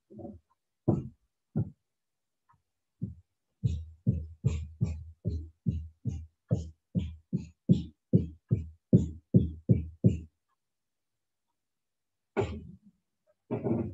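Dull thumps: a few scattered ones, then a steady run of about three a second for some six seconds, getting louder before stopping, and one more thump near the end.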